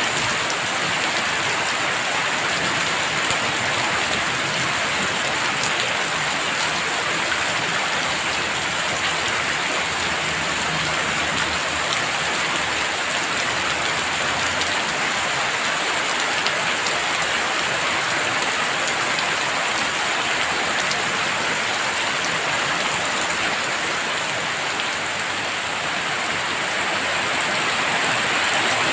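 Heavy rain falling steadily and densely, with close drops pattering on surfaces.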